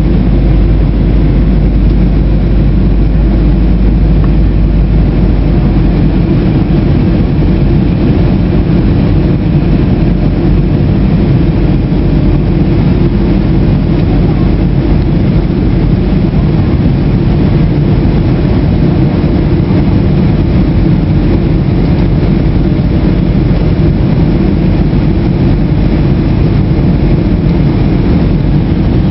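Jet airliner cabin noise from a window seat: a loud, steady low roar of the engines and rushing air. The deepest rumble eases about six seconds in.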